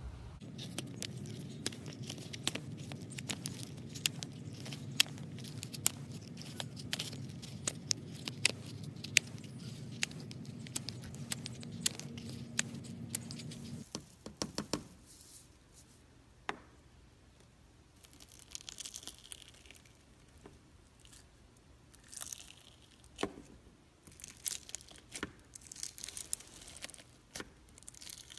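Slime being squished, with many small sharp clicks and pops over a steady low background rumble. About halfway through the rumble stops, and clear crunchy fishbowl slime full of plastic beads crackles in short bursts as fingers press into it.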